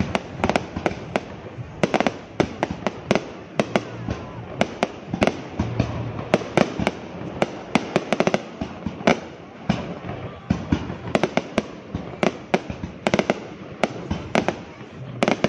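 Fireworks bursting close by: a dense, irregular volley of sharp bangs and crackles, several a second, that keeps going without a break.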